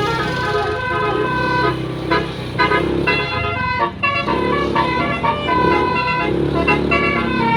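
Tour bus telolet horn playing a tune: several horn tones sounding together, stepping from note to note, with the bus engine running underneath.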